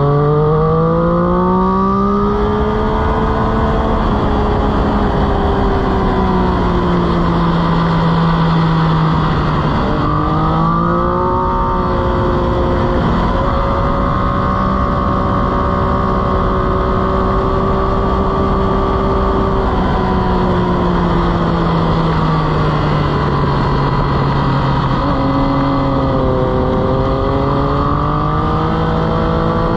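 Motorcycle engine at racing speed, recorded onboard, over a steady rush of air noise. The revs climb in the first couple of seconds and ease back. They dip sharply about ten seconds in, then climb and hold steady before falling away again. They rise once more near the end.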